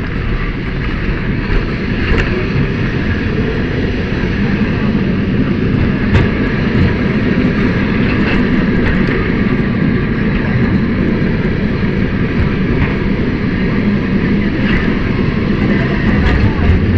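Lisbon Tram 28 streetcar running steadily along the rails, with occasional sharp clicks.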